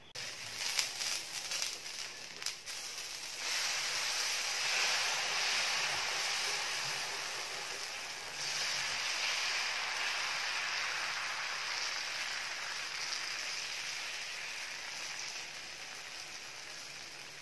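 Black rice dosa batter sizzling on a hot tawa as it is poured and spread with a ladle. A few clicks and scrapes in the first seconds; the hiss grows louder about three and a half seconds in and again about eight seconds in, then slowly fades.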